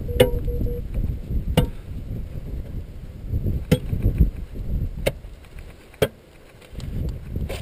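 Metal buckle and chain links of a wheel bracelet (strap-on anti-skid chain) clinking as it is fastened by hand. There are five sharp clicks spread unevenly through, over a low rumble.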